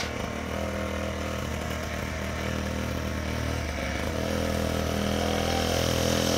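Small dirt bike engine running at a steady pitch, growing gradually louder.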